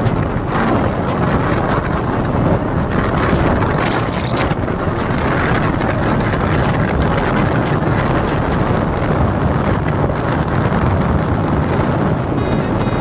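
Motorcycle riding along with its engine running under heavy wind noise rushing over the microphone.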